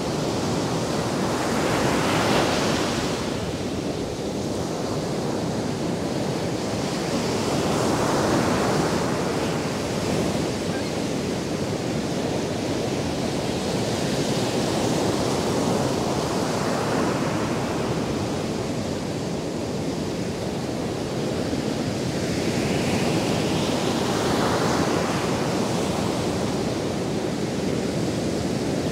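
Ocean surf breaking and washing up a sandy beach: a steady wash of noise that swells about every six to eight seconds as each wave breaks.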